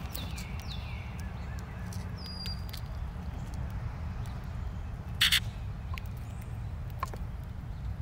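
Grackles and cowbirds feeding at a seed feeder, with scattered sharp taps of beaks pecking at the seed tray. A few short falling bird chirps come near the start, and one short loud rasp about five seconds in, over a steady low rumble.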